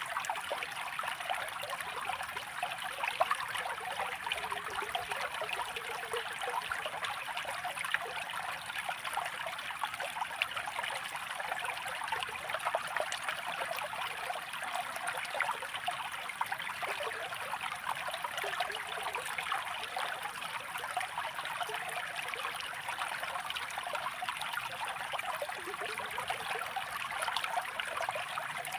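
Running water, flowing steadily without a break, with a fine trickling texture.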